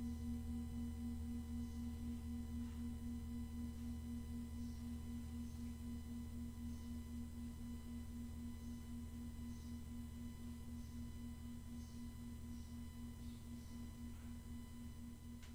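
A prayer bell ringing out to call to prayer: one long, slowly fading tone with a steady waver that pulses a few times a second.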